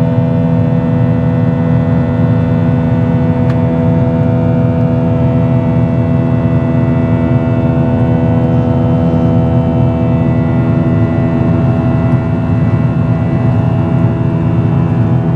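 Cabin noise of a Boeing 737-800 airliner in flight: its CFM56 jet engines and airflow give a steady drone, a low rumble under a hum of several steady tones.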